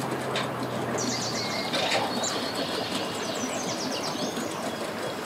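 Birds chirping in rapid runs of short high notes from about a second in, over steady outdoor background noise, with a faint low hum in the first second or so.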